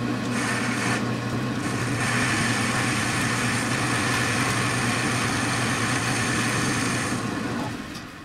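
Metal lathe turning a steel rifle barrel while a carbide tool takes a light skim cut: a steady motor hum with a hiss of cutting over it. The cutting hiss stops about seven seconds in and the machine sound fades near the end.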